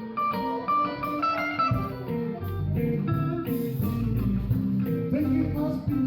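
Background guitar music: plucked guitar notes over a low bass line.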